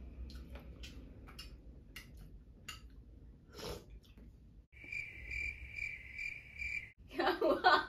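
Cricket-chirping comedy sound effect, about two seconds of evenly pulsed chirps that starts about five seconds in and cuts off abruptly: the 'awkward silence' gag. Before it, faint clinks of a spoon in a soup bowl.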